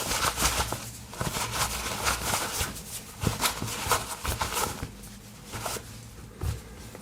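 A wallet's coin pocket being wiped clean: a run of irregular scratchy rubbing strokes that thin out after about five seconds.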